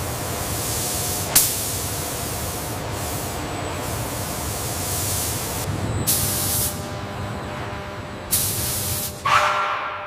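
Robotic paint spray guns hissing, with several bursts of spray that start and stop sharply, over a low steady rumble. The sound fades away at the end.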